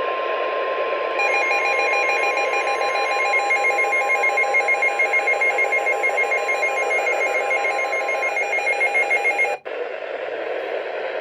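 NOAA Weather Radio's 1050 Hz warning alarm tone, one steady note held for about eight seconds over radio static, heralding a special marine warning. About a second in, a rapid electronic beeping alarm joins it at about four beeps a second. It cuts off suddenly near the end, leaving the static.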